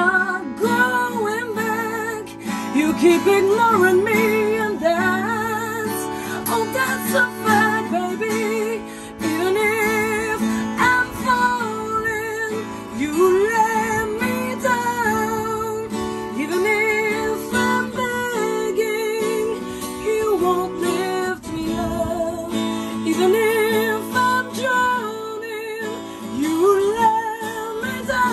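A woman singing a slow song in English with vibrato, accompanying herself on a strummed acoustic guitar.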